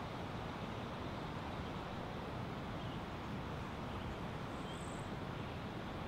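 Steady rushing noise of a waterfall, even and unbroken, with a brief faint high chirp about five seconds in.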